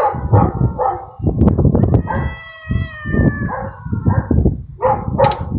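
Two cats yowling at each other in a territorial standoff before a fight: several short wails, then one long, slightly falling yowl, then more short wails near the end. Wind rumbles on the microphone throughout.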